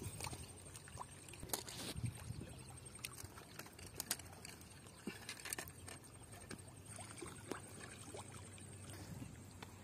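Fishing tackle being handled while baiting a hook: scattered light clicks and taps with small water trickles, over a faint steady high-pitched whine.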